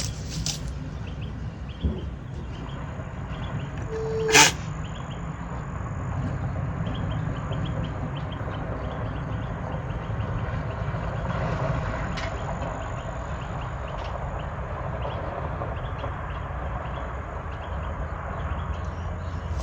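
An alpaca sneezing once, a sharp sudden burst about four seconds in, over a steady low background rumble.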